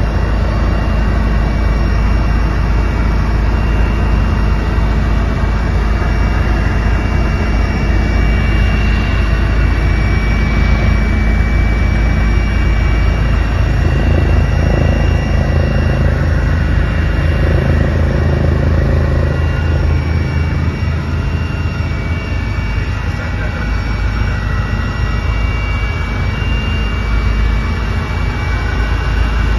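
Helicopter engine and rotor noise heard from inside the cabin in flight: a steady, loud drone with a thin high whine over it.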